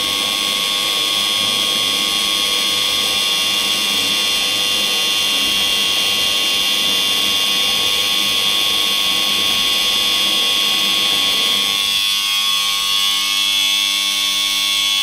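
Electric wrapping-test machine running, a loud steady high-pitched whine from its motor and drive as it rotates to wind 2 mm heavy-coated steel wire around itself for a wrap test. The lower part of the sound thins out about twelve seconds in.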